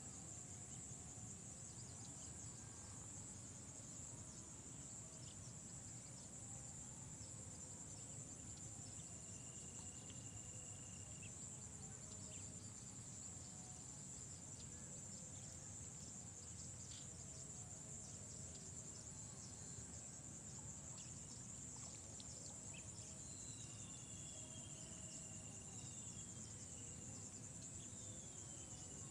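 Faint, steady high-pitched chirring of insects, with a few short falling whistles near the end.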